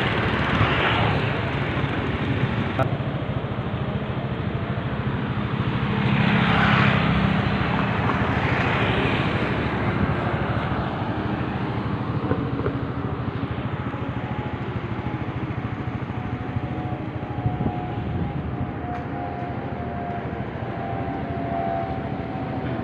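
Street traffic: vehicles driving past, two of them passing close and loud about six and nine seconds in, with a faint engine hum that comes in over the second half and falls slightly in pitch.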